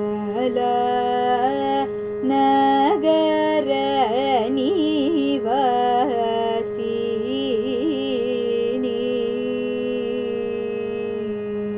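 A woman singing a Carnatic devotional song in long, held vowels with ornamented, wavering pitch over a steady tanpura-style drone. Her voice softens after the middle and stops near the end, leaving the drone alone.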